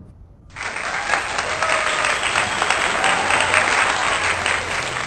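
Applause sound effect starting suddenly about half a second in: a crowd clapping, with faint cheering in it.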